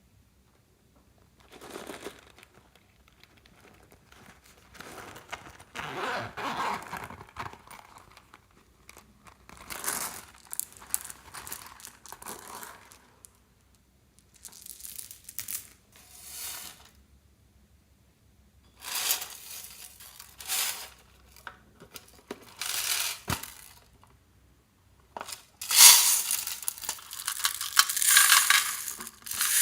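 Crunchy slime mixed with beads and floam being squished and worked by hand: crackling, crinkly bursts in several spells with short quiet pauses between, the loudest near the end.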